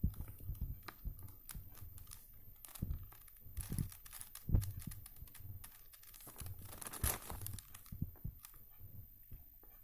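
4x4 Rubik's Cube being turned by hand: irregular clicks and clacks of its plastic layers rotating as a move sequence is done.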